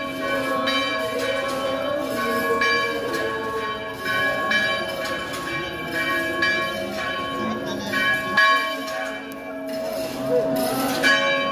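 Church bells ringing in a steady run of strikes, about three every two seconds, each tone ringing on under the next.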